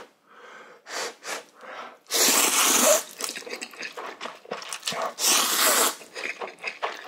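A man slurping instant ramen noodles off chopsticks: two long, loud slurps, about two seconds in and again about five seconds in, with shorter sucking mouth noises between.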